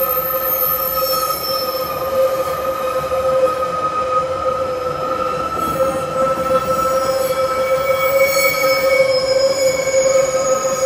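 Empty ore wagons rolling past with a steady wheel squeal over the rumble of wheels on the rails; a higher squeal joins in near the end.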